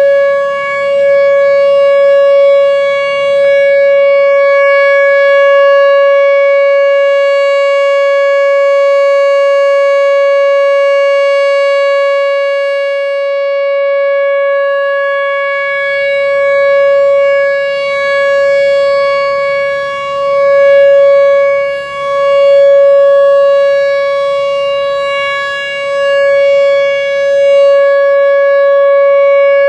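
Whelen Vortex R4 rotating outdoor warning siren sounding the Alert signal, one steady high tone held without a break. Its loudness swells and fades gently as the rotating head sweeps past.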